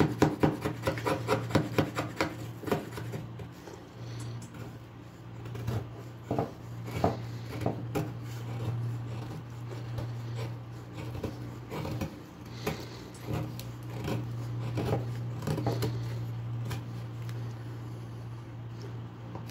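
Hunting knife blade whittling a wooden stick, each stroke a short scrape as a shaving peels off. A quick run of strokes in the first few seconds gives way to slower, spaced strokes, over a steady low hum.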